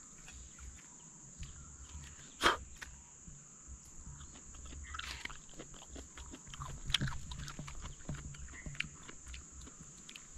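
A man eating ripe wild jackfruit, with wet chewing and mouth-smacking, scattered small clicks from handling the fruit, and one sharp snap about two and a half seconds in, over a steady high insect drone.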